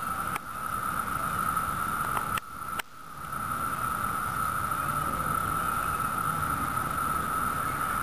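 Mass mating chorus of Brood II periodical cicadas (Magicicada): a steady, high, ringing drone with a low background rumble underneath. It dips briefly with a couple of clicks about two and a half seconds in.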